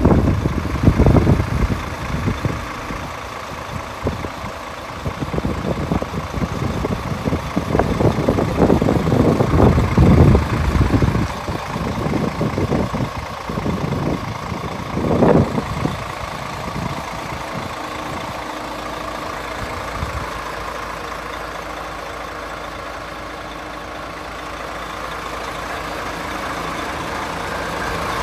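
A heavy truck's diesel engine idling steadily, with irregular loud rushes of noise over it through the first half.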